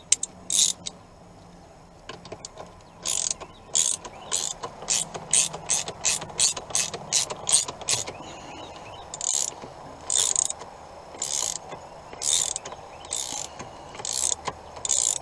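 Hand ratchet wrench clicking in repeated strokes as the steering wheel's retaining bolt is run down, the strokes coming faster in the middle and slower later.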